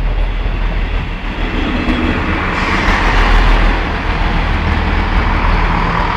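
Class 158 diesel multiple unit passing close by over a level crossing: a steady, loud rumble.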